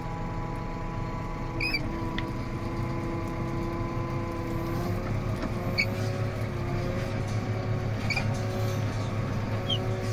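Tractor engine running steadily, heard from inside the cab, with its pitch stepping up slightly about halfway through. A few short, high squeaks come through over it.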